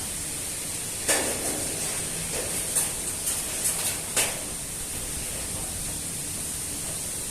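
Strong wind blowing with a steady hiss. Between about one and four seconds in comes a string of sharp knocks and clicks, the loudest at the start and the end of the string.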